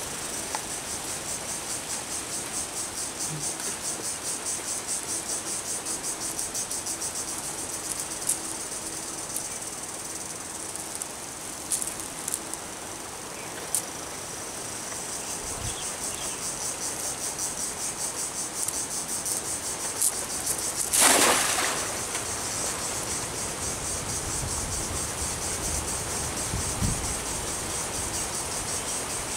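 Insects chirring steadily in a high, rapidly pulsing chorus. About two-thirds of the way through, a brief, loud rush of noise stands out above it.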